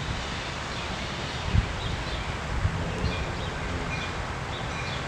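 Wind gusting on the microphone, with one stronger gust about a second and a half in, over leaves rustling and small birds chirping now and then.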